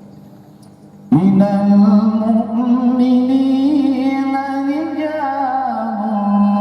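Male qari reciting the Quran in the melodic murattal/mujawwad style: after about a second of quiet he starts a long held phrase, the note bending and ornamented, dipping near the end.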